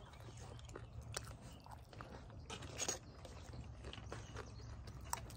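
Close-up chewing, with plastic forks clicking and scraping on paper plates in a few short, sharp sounds.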